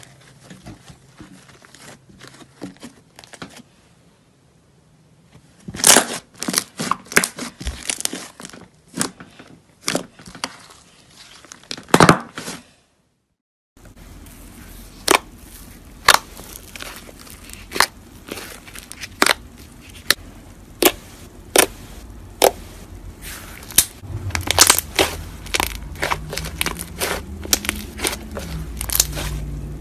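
Fingers pressing and squishing slime, with sharp popping and crackling clicks as trapped air bubbles in the slime burst. There is a short silent gap partway through, and the pops come thicker near the end.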